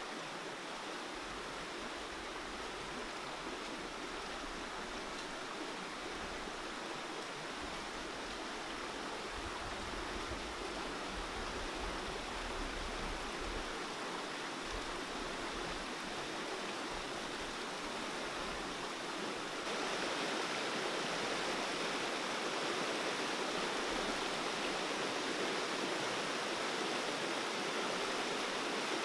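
Fast river water rushing over rocks and through rapids in a steady hiss, with no speech or music. It steps up suddenly in loudness about two-thirds of the way through.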